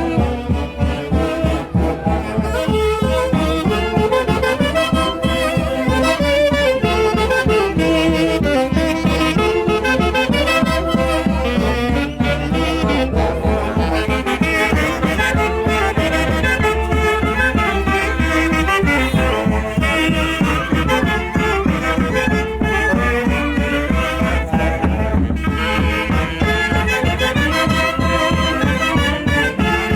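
A Peruvian orquesta típica playing Santiago festival music: saxophones and brass carry the melody over a steady beat.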